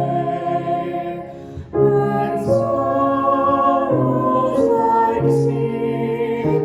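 Hymn singing: voices holding long notes that move from chord to chord, briefly dipping in loudness about a second and a half in.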